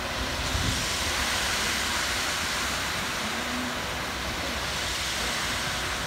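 Ready-mix concrete mixer truck running with its drum turning while concrete slides down the chute: a steady rumble and hiss.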